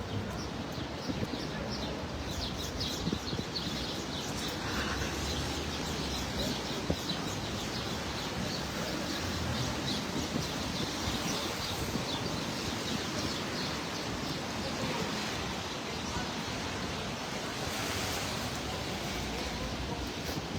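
Steady wash of rainy city-street noise: traffic hiss on wet pavement and falling rain, with scattered faint clicks.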